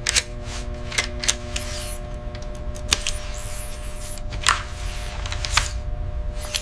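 Sci-fi mechanical sound effects: irregular sharp clicks and short hissing sweeps over a steady low hum with a few held tones, standing in for the android's gears and actuators working.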